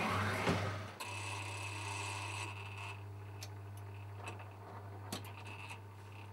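A chemical photo booth's dip-and-dunk developing mechanism running: a steady electrical hum with a few sharp mechanical clicks and ticks.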